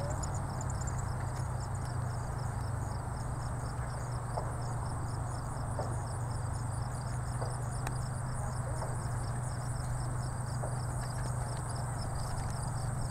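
Outdoor field ambience: a steady low hum under a fast, even, high-pitched chirping of insects, with a few faint clicks.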